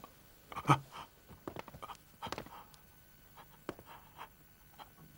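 Scattered small clicks and soft rustles of people moving in heavy robes, the loudest just under a second in.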